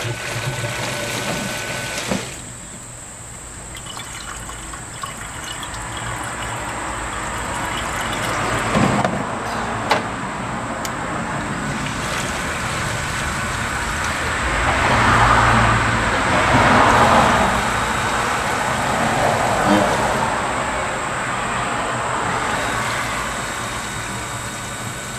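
Coolant pouring and gurgling into the intercooler reservoir while the 2002 Ford F-150 Lightning's new electric intercooler pump runs with a low hum, circulating it through the system. The rush of liquid builds up and is loudest past the middle.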